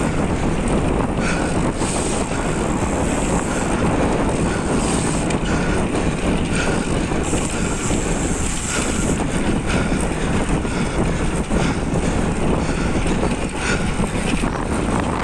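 Steady wind rush across the microphone of a camera moving at road-bike racing speed, mixed with the roll of bicycle tyres on a concrete road.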